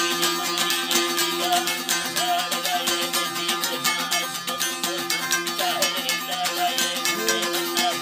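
Balochi folk music played live: long-necked lutes plucked in a quick, steady pattern over a held drone.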